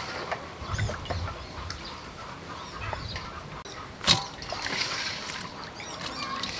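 Background calls of birds and poultry, scattered short chirps, with one sharp knock about four seconds in as vegetables are handled in a steel colander.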